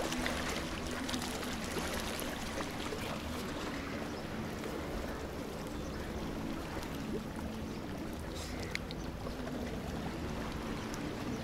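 Steady shoreline ambience: shallow sea water washing and trickling over rocks, under a faint steady low hum, with a few light clicks.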